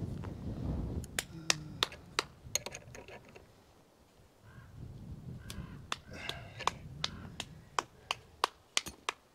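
Metal gate-hinge hardware worked by hand on a wooden post: a string of sharp metal clicks, irregular, about two a second.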